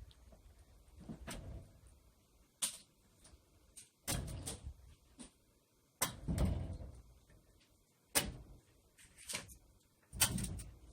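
Axe splitting firewood: about five heavy strikes roughly two seconds apart, each a sharp wooden crack with a thud, with a few lighter knocks between.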